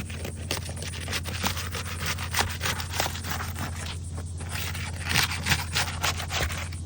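Asphalt roof shingles being pried up to break their seal: irregular scraping and crackling as the tabs tear loose from the sealant strip, over a steady low hum.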